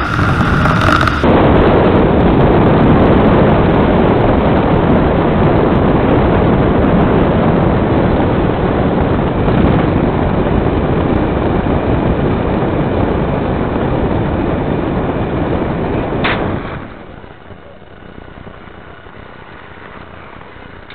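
Wind rushing and buffeting over the microphone, with the trolley running along the zipline cable at speed. Near the end there is a short sharp sound, then the noise drops off abruptly as the rider slows into the landing platform.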